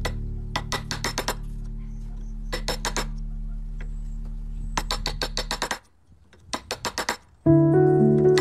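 Steel wood chisel struck repeatedly as it chops a recess into a block of pale wood: quick bursts of four to six sharp blows, about two seconds apart. Background music underneath drops out for a moment past the middle and comes back louder near the end.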